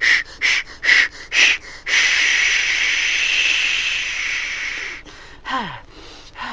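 Steam locomotive puffing about twice a second, four puffs, then a long hiss of steam let out for about three seconds that fades away as the engine stands. Near the end, a couple of breathy sighs falling in pitch.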